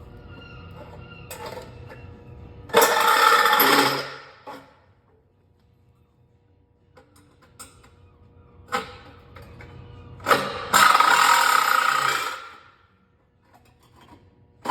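Handheld power saw cutting into a hollow aluminum post in two short runs of about a second and a half each, one about three seconds in and one near eleven seconds in, with scattered clicks and knocks of the tool between them.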